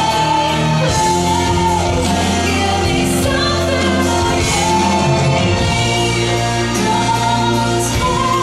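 A pop-style song: a sung melody held over sustained musical accompaniment.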